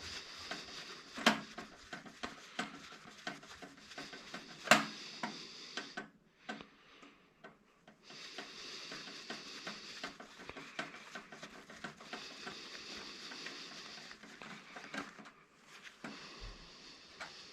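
Small clicks, rattles and clatter of parts being handled while scrap electronics are taken apart by hand, with two sharp knocks about a second and nearly five seconds in.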